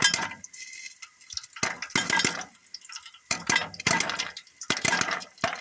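Popcorn kernels popping in hot coconut oil, in scattered clusters of crackling pops with short gaps between them: the batch is nearly done and the popping is thinning out.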